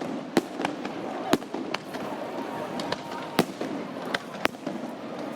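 Fireworks display: a string of sharp bangs from bursting shells at irregular intervals, about eight in all, over a steady murmur of crowd voices.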